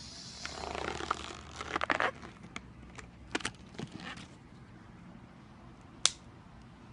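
Yellow latex balloon being squeezed and worked around a phone: rubber crackling and squeaking for the first two seconds, then scattered clicks of handling, and one sharp click about six seconds in.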